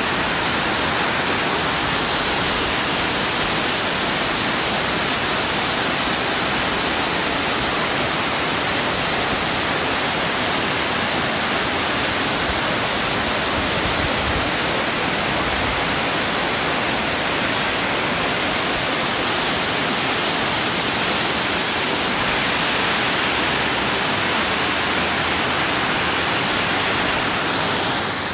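Amicalola Falls' water rushing close by: a loud, steady, hissing rush that holds unchanged throughout.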